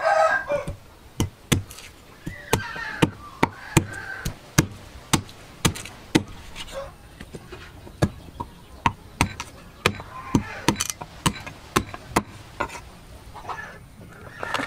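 Meat cleaver chopping pork leg and trotters into pieces on a round wooden chopping block. The sharp chops come one after another, unevenly, about two a second.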